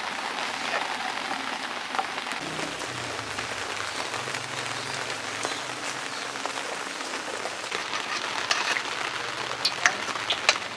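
Steady rain falling, with scattered sharp taps of a knife on a cutting board as potatoes are cut into fries.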